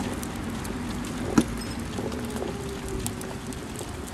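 Pet stroller's small wheels rolling over paving stones, with a single sharp knock about a second and a half in.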